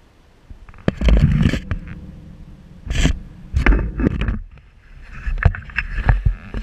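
Handling noise from the camera being moved on a metal balcony railing: irregular scraping and rubbing with heavy low rumbles and several sharp knocks.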